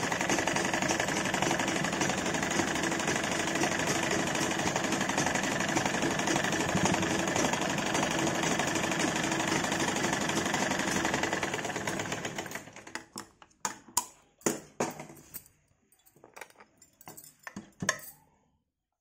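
Domestic sewing machine running steadily as it stitches a seam, stopping about twelve seconds in. A few separate sharp clicks follow.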